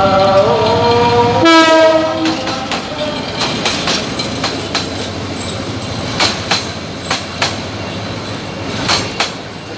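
Train at a level crossing: the horn sounds for about the first two seconds, changing pitch abruptly about a second and a half in. Then the wheels clatter over the rail joints, with many irregular sharp clicks over a steady rumble.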